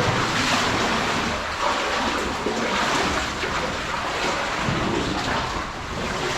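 Steady rush of falling water from an underground waterfall in a cave.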